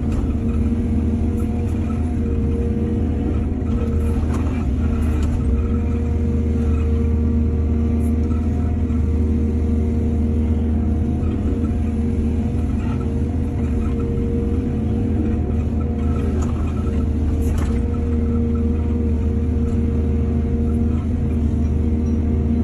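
Heavy diesel engine of an excavator running steadily under load, with a few short knocks and clatters scattered through.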